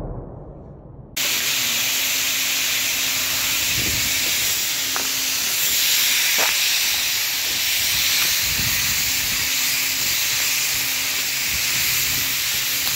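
The rumbling tail of an explosion dies away. About a second in, a loud steady hiss takes over, with a few faint clicks.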